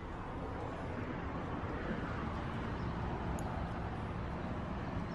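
Steady background noise, an even hiss and low rumble with no distinct event.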